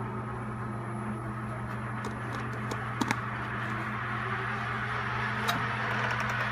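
Steady machine hum, with two sharp plastic clicks about three seconds in as a lid is pressed onto a plastic clay cup, and another click near the end.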